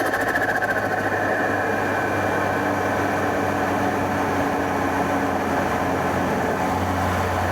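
BMW N20 turbocharged 2.0-litre four-cylinder engine with an aftermarket open intake, running steadily while the car is driven at an even pace, its pitch drifting only slightly.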